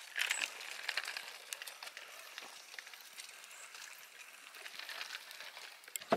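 Footsteps on a hiking trail: a steady scatter of small crunching clicks, with one sharper click near the end.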